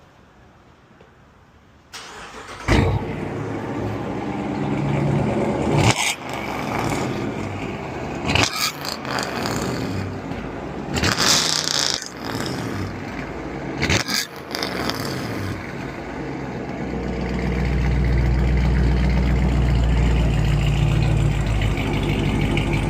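2018 Dodge Charger's 5.7-litre Hemi V8 starting up about two seconds in, then running through newly fitted catless mid-pipes, with several short loud bursts and a deep steady drone over the last few seconds.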